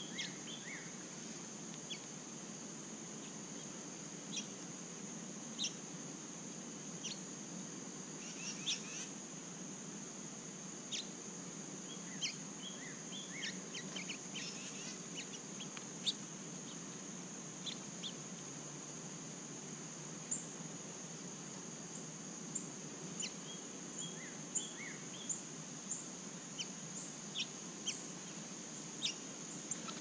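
Short, sharp bird chip calls scattered throughout, coming more often in the second half, over a steady high-pitched insect drone.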